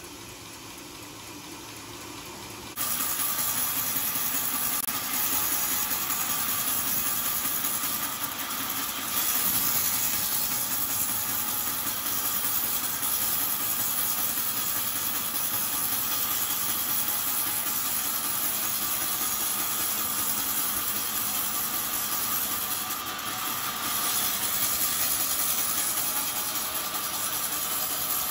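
Band saw cutting a coconut-wood board, a steady loud hissing whine of blade and wood. Quieter for the first few seconds, then it rises sharply and holds, dipping slightly twice.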